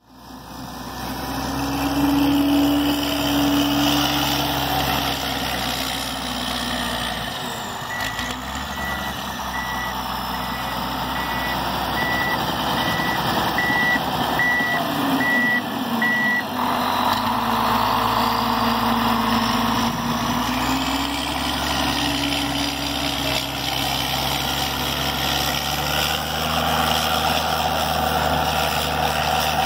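PistenBully 600W Polar snowcat's Mercedes-Benz diesel engine running, with its reverse alarm beeping about once or twice a second for roughly eight seconds as it backs up. The beeping then stops and the engine goes to full throttle, its sound rising and growing stronger as the machine accelerates away.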